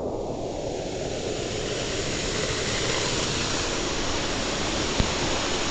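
Waterfall rushing steadily, a dense hiss of falling water; a single short click about five seconds in.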